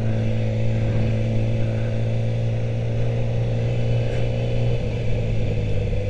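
Yamaha R6 sport bike's inline-four engine running at steady revs while riding in slow city traffic, still in first gear. The note holds level and eases slightly about five seconds in.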